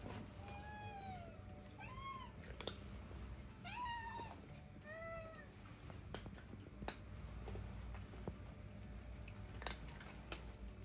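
A cat meowing four times in quick succession, short calls that rise or fall in pitch, followed by a few light sharp clicks.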